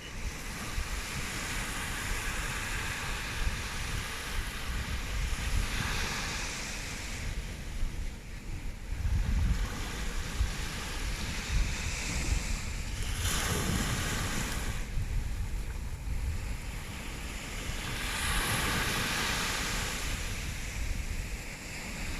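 Ocean surf washing onto a sandy beach, surging three times about six seconds apart, with wind rumbling on the microphone.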